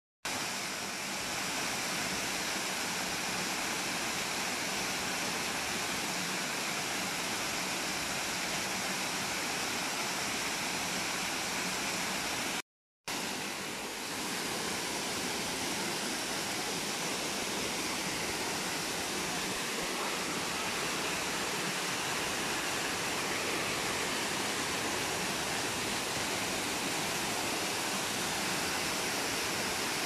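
Waterfall on a mountain stream, water rushing steadily over rocks, with the sound dropping out to silence for a moment about 13 seconds in.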